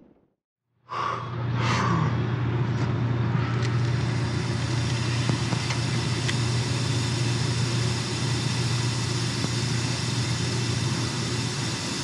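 Ultralight aircraft engine running at a steady speed, a constant low drone with hiss above it, cutting in abruptly about a second in after a moment of dead silence.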